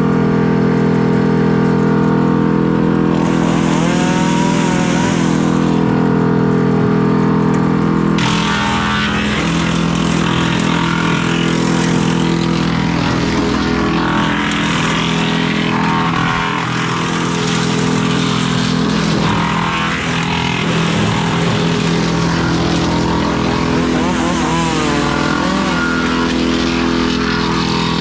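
Tractor engine running a PTO-driven wood chipper, with tree limbs being fed in and chipped. A coarse chipping noise comes in about eight seconds in, and the engine pitch sags briefly a few times as the chipper takes load.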